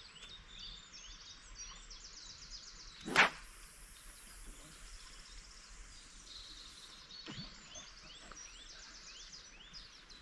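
Overhead cast with a carp float rod: a sharp swish about three seconds in, then a high hiss of line running off the reel for a few seconds. Birds sing throughout.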